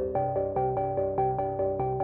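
Background music: quick, evenly repeating plucked, bell-like notes, about five a second, with the chord changing just after the start.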